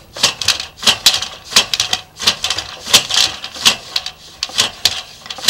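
Sharp, irregular clicking and clattering, about two or three clicks a second, from the sewer inspection camera's push cable and reel as the camera is fed slowly down the drain line.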